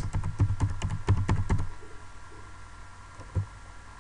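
Computer keyboard typing: a quick run of keystrokes over the first second and a half, then a single keystroke near the end.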